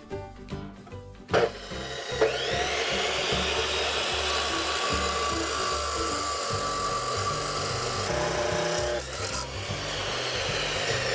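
Handheld power tool spinning up about two seconds in, then running steadily under load with a harsh grinding hiss, which changes near the end.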